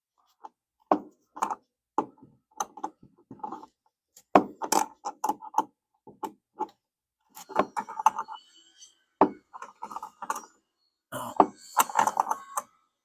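Irregular clicks and knocks of a hand tool working on the deck's bolt hardware.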